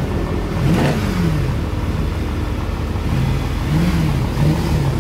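Nissan R35 GT-R's twin-turbo 3.8-litre V6 revved while the car stands still: one quick blip about a second in, then a run of short rev blips near the end.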